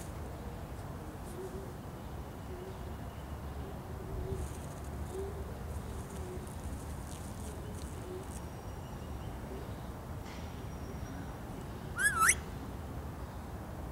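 Indian ringneck parakeet gives one short, loud whistle that wavers and rises, about twelve seconds in, over a steady low outdoor background with faint low hooting earlier on.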